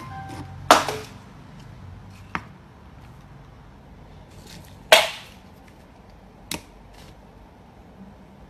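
Small plastic containers knocked over by a cat's paw and dropping onto a wooden surface, giving four sharp clacks. The loudest comes about halfway through.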